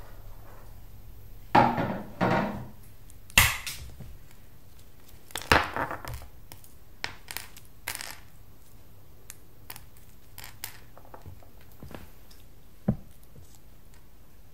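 Tableware being handled on a kitchen table: a knife on a plate and glass or crockery being set down, making scattered clinks, scrapes and knocks. The loudest come in the first six seconds, including a sharp knock about three and a half seconds in. After that there are only sparse small taps.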